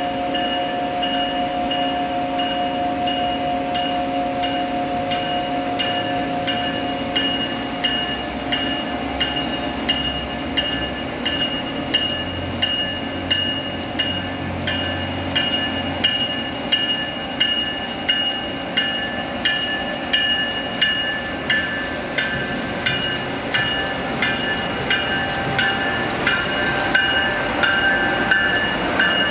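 Amtrak AEM-7 electric locomotive and its passenger cars rolling slowly past. It starts with a steady electric hum; from about a quarter of the way in, the wheels click over rail joints about once a second as the train goes by.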